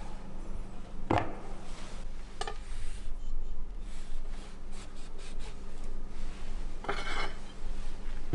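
Kitchen knife and hands working raw fish slices on a wooden cutting board: three short scraping rubs, the last and longest near the end, over a steady low hum.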